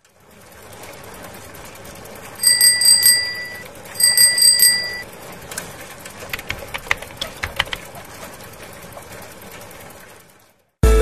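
A small bell ringing twice in quick trills, each about a second long, over a faint steady hiss, followed by a run of light, uneven clicks. Soft music starts right at the end.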